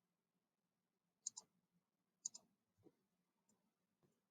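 Near silence with faint room hum, broken by two soft clicks about a second apart, each a quick double tick: a computer mouse button pressed and released.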